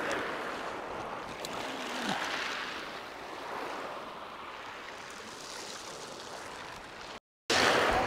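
Surf washing on the beach, a steady wash of noise that slowly fades. It drops out for a moment near the end and comes back louder.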